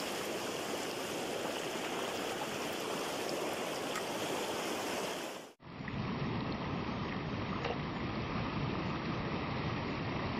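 Rocky river rapids rushing steadily. A brief drop in level comes about five and a half seconds in, after which the water has more low rumble.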